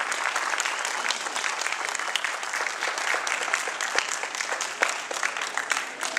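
Audience applauding, a dense patter of many hands clapping that thins out and grows quieter near the end.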